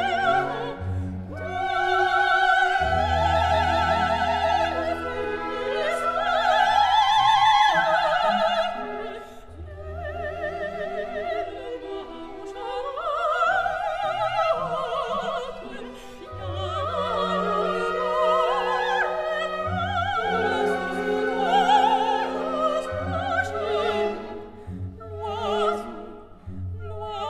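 Background music: operatic singing with a wide vibrato on long held notes over orchestral accompaniment.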